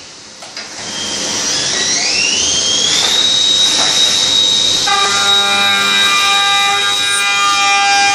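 Vertical machining centre spindle spinning up with a rising whine, settling into a steady high whine about three seconds in. From about five seconds the face mill bites into the metal block in the vise, adding a cluster of steady ringing tones to the whine.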